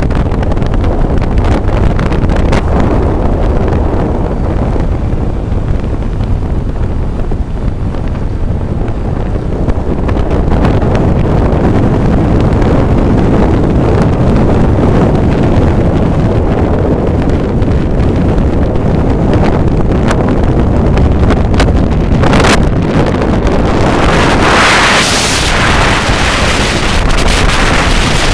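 Wind rushing and buffeting over the microphone of a moving motorcycle at road speed, with engine and road noise underneath. About three quarters of the way through, a louder, hissier gust swells for a few seconds.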